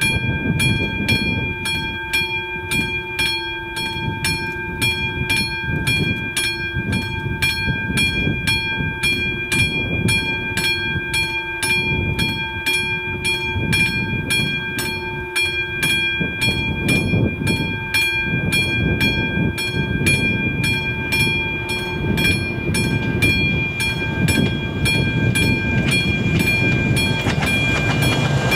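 Classic electric bell of an AŽD level crossing ringing steadily, about three to four strokes a second, warning of an approaching train. Under it is a low rumble that grows near the end as the train comes close.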